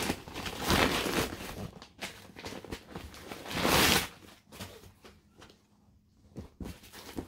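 Brown paper mailer rustling as a package is pulled open, with two louder bursts about a second in and near four seconds, then quieter taps of a cardboard box being handled.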